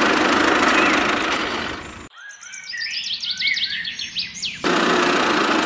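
Birds chirping in quick, repeated rising calls for about two and a half seconds in the middle, between stretches of a steady, hissy engine-like noise that cuts off about two seconds in and comes back suddenly near the end.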